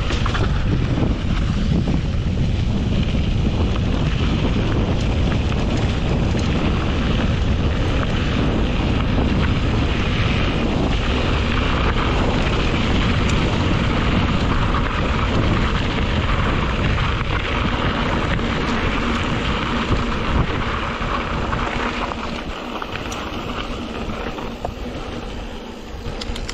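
Wind buffeting the camera microphone as a mountain bike rides fast along a dirt road, with the tyres rumbling over the dirt; a steady rush that eases off in the last few seconds.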